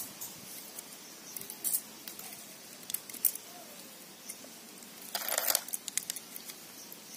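Hands working small handicraft pieces: scattered light clicks and taps, with a brief rustle about five seconds in.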